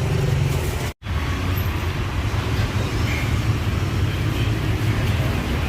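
Steady outdoor street noise dominated by a low traffic rumble, cut off for a split second about a second in.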